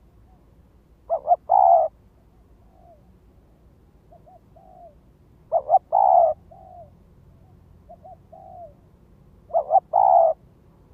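Spotted dove cooing: three calls about four seconds apart, each two short notes followed by a longer third note. Fainter, softer coos come between the calls.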